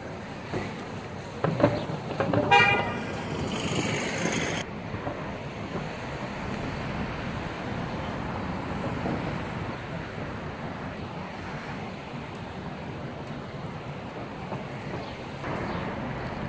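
Street traffic noise. A vehicle horn gives a short honk about two and a half seconds in, followed by a hissing noise that cuts off suddenly about two seconds later.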